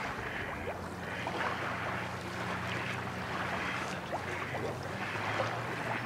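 Low, steady hum of a boat engine running, over lake water lapping and wind.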